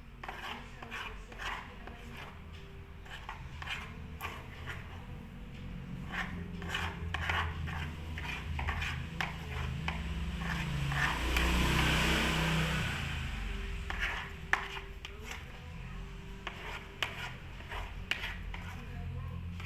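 Slime mixture being stirred in a bowl: irregular scraping and clicking of the stirring utensil against the bowl, with a louder stretch of rubbing in the middle.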